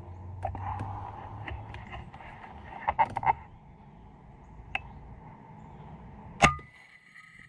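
A single PCP air rifle shot about six and a half seconds in: one sharp crack with a brief ringing after it. Earlier, around three seconds in, a quick cluster of sharp clicks.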